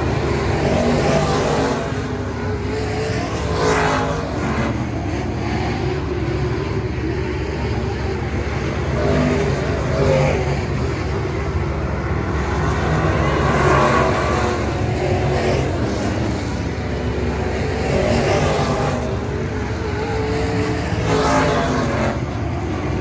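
Pack of dirt-track race cars running flat out around the oval, engines at full throttle, the sound swelling several times as cars pass close by.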